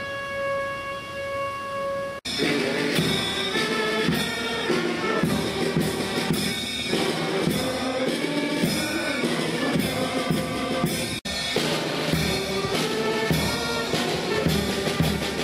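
Military band of brass and drums playing. A single long brass note is held at the start and breaks off about two seconds in, and full band music with drum strokes follows, with a brief break about eleven seconds in.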